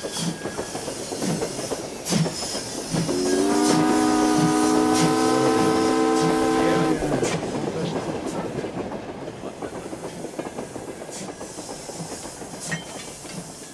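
Train wheels clicking over rail joints in a steady rhythm, with a horn blowing one held chord for about four seconds near the middle; the sound then slowly fades away.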